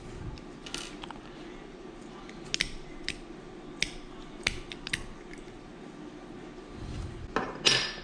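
Small parts and a hand tool clicking as a paintball marker's solenoid valve is worked apart: a scattering of sharp single clicks, then a louder scraping rattle near the end, over a steady low hum.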